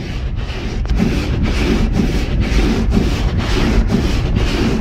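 Car windshield wipers scraping back and forth over snow and ice on the windshield glass, about two strokes a second, over a steady low rumble.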